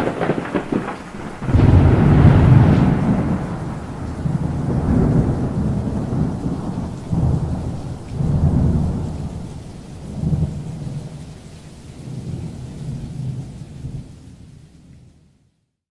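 Thunderstorm: a sudden thunderclap at the start, then several deep rolling rumbles of thunder over steady rain, fading out near the end.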